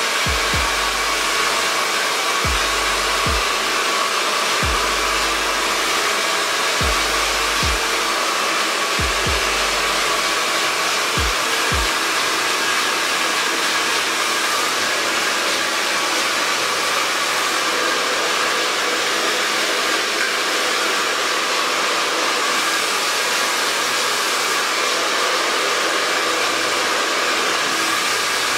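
Handheld hair dryer blowing on its hot setting, a steady rush of air with a faint motor whine throughout. There are a few low irregular thumps during the first twelve seconds.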